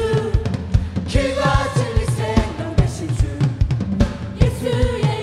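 Live worship band music: a drum kit keeps a steady, driving kick-and-snare beat under sustained keyboard and instrument chords.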